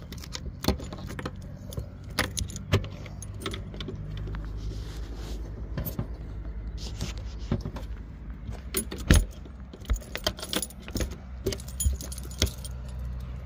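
A bunch of keys jangling in the lock of a motorhome's gas-locker hatch, with repeated latch clicks and knocks as the hatch is unlocked, opened and later shut and locked again. A sharp knock a little after halfway through is the loudest sound, heard over a steady low hum.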